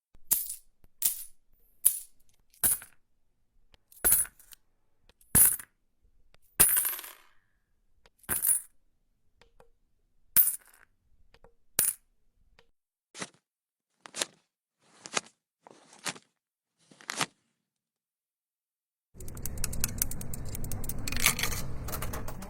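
A series of separate coin clinks and drops, about fifteen short sharp strikes with brief ringing, roughly one a second. Near the end a continuous rattling clatter runs for about three seconds.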